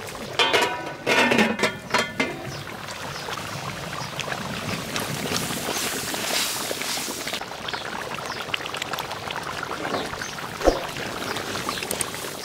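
Cooking sounds from a pot of rohu fish curry in coconut milk: several ringing metal knocks in the first two seconds, then steady simmering and stirring noise, with one sharp click near the end.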